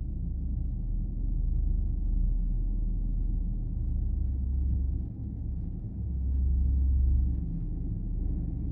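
A low, steady rumble, with faint clicks and ticks above it.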